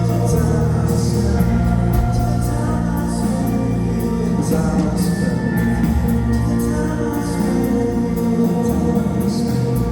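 Live band music with long held sung notes over sustained instruments and regular cymbal strokes.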